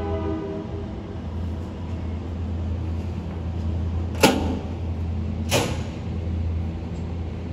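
A diesel locomotive's horn finishes in the first second, over a steady low rumble of the passing train. Two sharp knocks are heard, about four seconds in and again a second later; they are the loudest sounds.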